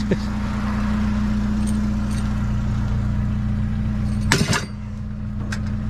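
Vehicle engine idling steadily with a constant low hum, with a short clatter of knocks about four and a half seconds in as something is set among the scrap in a pickup's bed.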